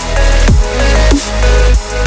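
Electronic background music with heavy bass and a steady beat, with sweeps falling in pitch roughly every half second or so.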